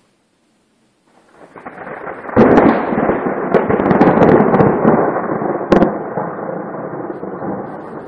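Thunder following a lightning flash: a low rumble builds from about a second in, breaks into a loud crack a little after two seconds, and rolls on with another sharp crack near six seconds before slowly fading to a lower rumble.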